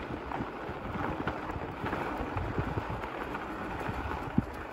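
Fat bike riding along a snowy trail: a steady rushing noise of tyres on snow and wind, dotted with small knocks, with one sharper knock about four seconds in.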